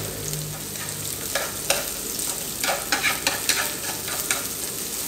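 Chopped garlic, lemongrass and shallots sizzling in oil in a nonstick frying pan, with chopsticks clicking and scraping against the pan at irregular moments as they are stirred.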